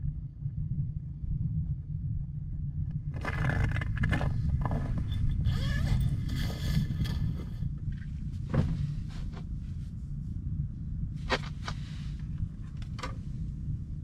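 A steady low rumble, with a few seconds of rustling noise, then a handful of sharp clicks and knocks as fishing gear is handled inside an ice-fishing shelter.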